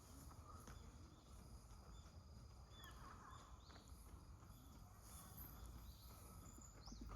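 Near silence: faint outdoor ambience with a low rumble, broken by a few faint, short, high bird chirps.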